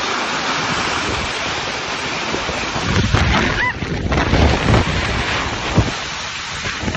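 Heavy hail pelting the ground in a dense, steady hiss, with gusts buffeting the microphone in low rumbles through the second half.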